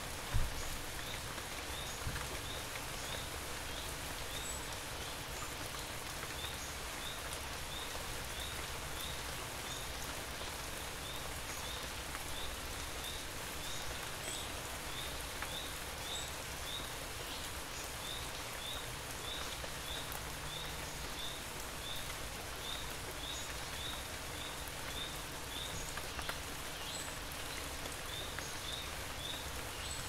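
Steady rain falling, an even hiss of drops, with a short high chirp from a small animal repeating about twice a second. A single low thump sounds about half a second in.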